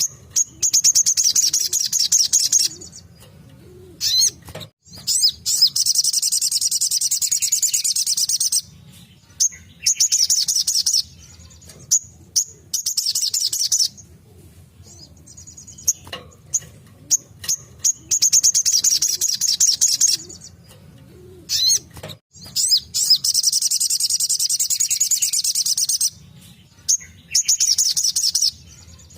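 Little spiderhunter (sogok ontong) singing its rapid-fire 'tembakan' song: high, fast trills of one to a few seconds each, repeated again and again with short sharp chips in between.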